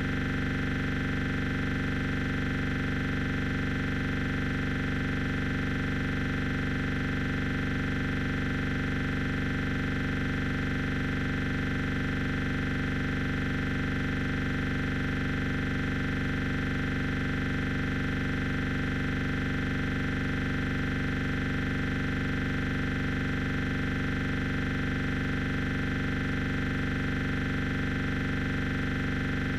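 A steady, unchanging drone of many fixed tones over a hiss, holding at one level throughout.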